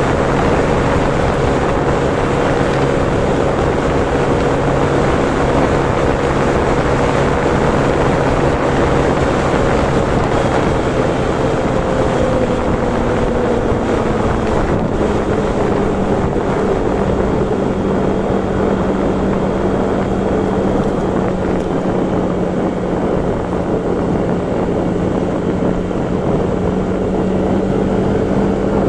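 Vehicle engine running steadily at cruising speed under wind and road rush. Its engine note drops a little about halfway through as it eases off, then holds steady.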